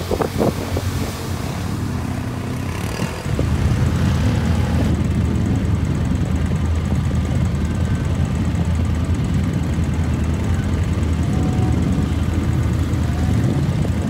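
ATV engine running steadily under load while the quad drives through a flooded mud hole, getting louder about three seconds in.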